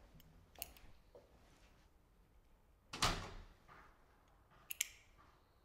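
A door shutting with one thud about three seconds in, with a few fainter clicks before and after.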